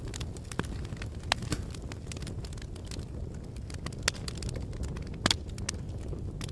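Wood fire crackling, with irregular sharp pops over a steady low rumble of wind; a few pops stand out, the loudest near the end.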